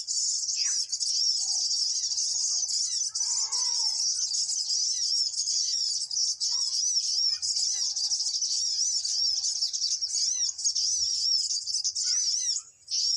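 High-pitched bird chirps repeated rapidly and without pause, several a second, each a short curved note, used as a lure call for trapping birds. The chirping breaks off briefly near the end, and fainter calls of other birds sound underneath.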